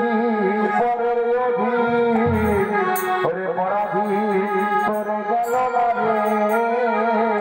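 Live traditional music from the theatre's accompanying band: a long-held, wavering melody line over a steady drone, with a few brief high cymbal-like clashes.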